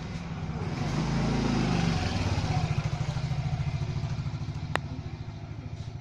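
A motor engine running steadily with a low, even pulse, swelling louder for about a second near the start. A single sharp metallic click near the end.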